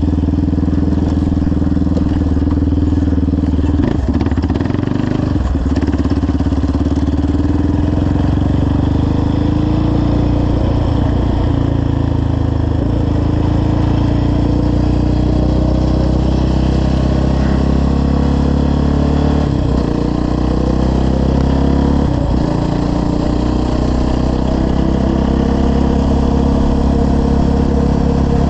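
Yamaha Raptor 700R ATV's single-cylinder four-stroke engine, fitted with a full CT Racing exhaust and FCI intake, running under way as it is ridden. Its pitch rises and falls with the throttle, breaking briefly several times.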